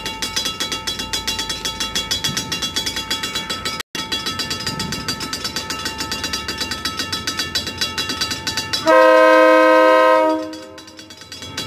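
Level-crossing warning bell ringing rapidly and steadily as an approaching Coaster commuter train sounds one long horn blast about nine seconds in.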